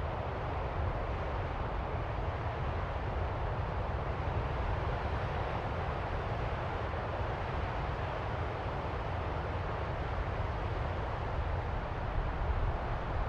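Distant ocean surf: a steady low rush of waves, with no single wave breaking out of it and a slight swell near the end.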